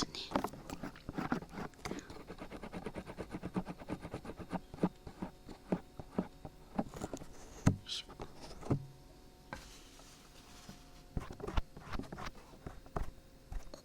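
Dried glue being peeled off the ears of a binaural dummy-head microphone, with fine, rapid crackling and clicking as it lifts away, and fingers rubbing close on the mic ears. Two dull bumps come near the middle, then the crackling thins out before picking up again.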